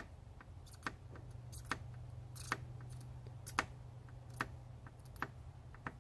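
Light, sharp clicks about once a second over a low steady hum during soldering at a workbench, as a soldering iron is pressed onto a console HDMI port pin.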